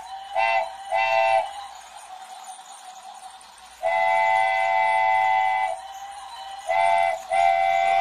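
Train horn sounding a chord of several tones in blasts: two short toots at the start, a long blast of about two seconds a little before the middle, then a short toot and another long blast near the end.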